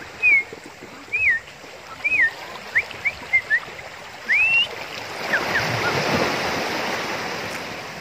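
A bird's short whistled chirps, rising and falling, repeating about once a second. About five seconds in, a wave washes onto the beach, swelling and slowly fading.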